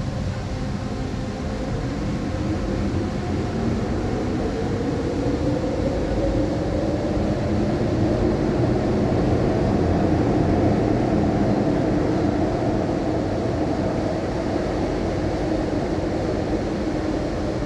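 Electric train pulling away: a motor whine rises in pitch over several seconds over a steady low rumble of the running gear. It grows louder to about ten seconds in, then eases a little.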